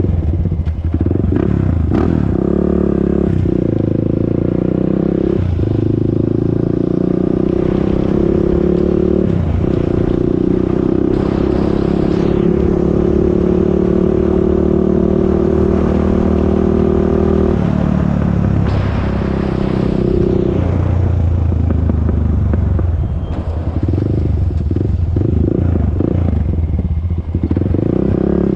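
Honda TRX400EX ATV's single-cylinder four-stroke engine running under way, revving up and dropping off several times as it is ridden through the gears.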